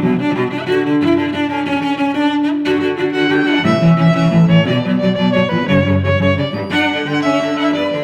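Bowed string music, violin and cello together, playing a melody of held notes that change about every half second to a second.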